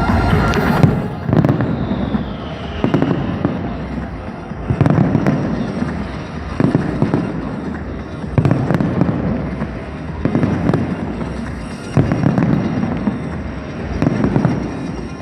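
Large fireworks display: aerial shells bursting in a steady series, about one every two seconds, each burst followed by crackling.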